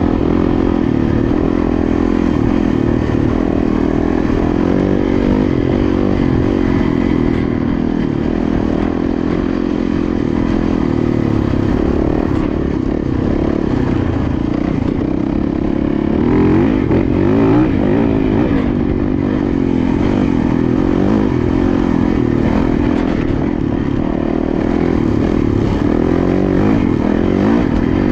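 Yamaha dirt bike engine running steadily under way on a dirt trail, with the revs rising and falling briefly a little past halfway and again near the end.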